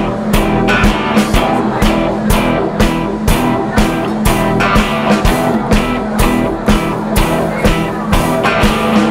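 Live rock band playing: acoustic and electric guitars over a steady drum-kit beat.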